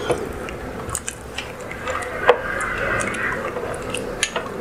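A black spoon stirring a pot of chunky pea and potato soup: the liquid sloshes and squelches, with scattered clicks of the spoon against the pot, the sharpest about two seconds in.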